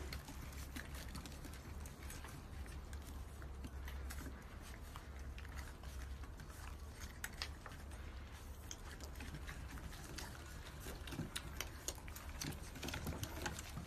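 Faint scuffling and many small irregular clicks from a litter of puppies nursing and jostling on a wooden deck, over a low steady hum.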